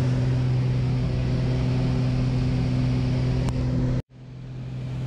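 Steady drone of a small jump plane's engine and propeller, heard inside the cabin. It cuts out abruptly about four seconds in and fades back up.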